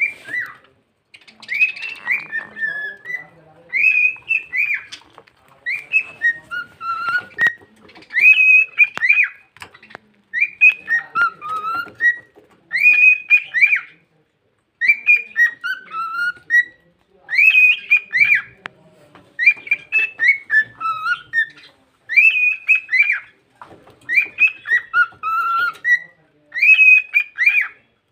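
Pet cockatiel whistling and chattering in a talking-bird voice, repeating the same short phrase over and over, about once every two seconds with brief pauses between.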